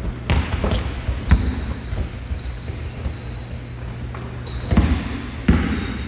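Basketball bouncing and thudding on a wooden gym floor, several separate knocks with echo from the hall, together with some thin high squeaks.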